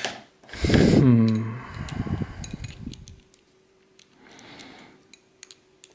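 A loud wordless vocal sound falling in pitch, like a sigh or groan, followed by light clicks and taps of small metal padlock parts being handled.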